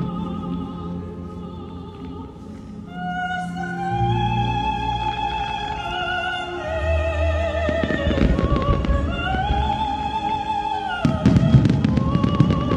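Operatic singing with vibrato over orchestral accompaniment, the soundtrack of a fireworks display. Fireworks bangs and crackle join in about eight seconds in and again more loudly near the end.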